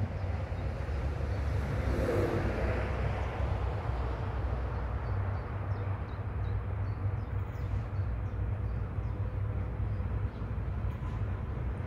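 Diesel locomotive 636, an NS 600-class shunter, hauling a work train toward the listener, its engine a steady low drone with a faint steady tone over it and a brief swell about two seconds in.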